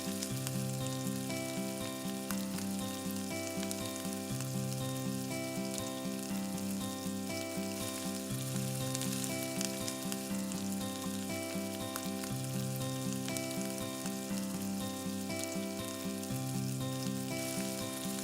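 Food sizzling and crackling as it fries in a miniature clay pot, steady throughout, over background music with a short repeating melody.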